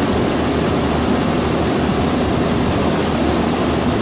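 Steady loud hiss of nitrogen flowing from a cylinder into a heat pump's refrigerant lines, pressurizing them slowly. The pressure is building slowly because of a restriction in the lines, which is suspected to be a bad TXV.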